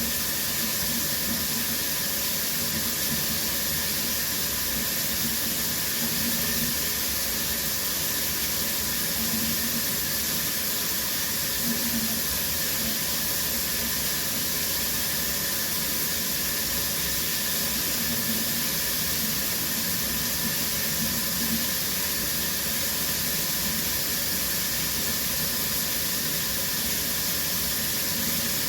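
Shower running steadily, water spraying from the showerhead and falling in a continuous hiss.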